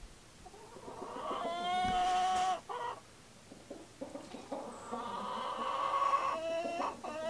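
Chickens calling: two long, drawn-out calls, the second one longer.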